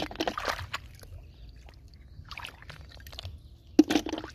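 Hands splashing and sloshing in shallow muddy water while digging out snails from the mud: a splash right at the start, a smaller one midway, and the loudest splash near the end.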